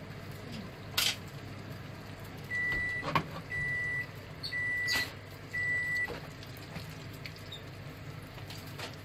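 Four short electronic beeps at one pitch, evenly spaced about a second apart, over a steady low hum, with a few sharp clicks in between.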